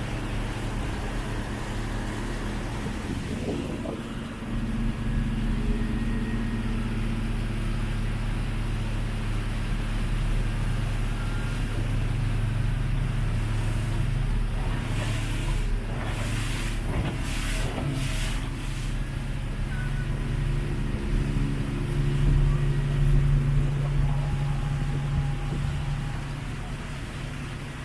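Small passenger boat's engine running steadily under way, its hum growing louder about four seconds in. A few brief rushes of noise come in the middle.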